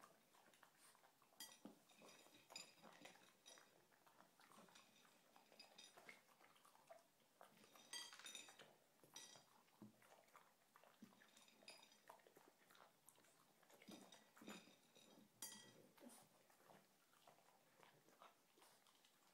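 French Bulldog eating from a dish: faint chewing with scattered small clicks and clinks against the plate.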